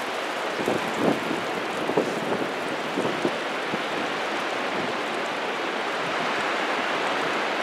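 Ocean surf washing up the beach as a steady hiss that swells a little near the end, with a few short knocks in the first few seconds.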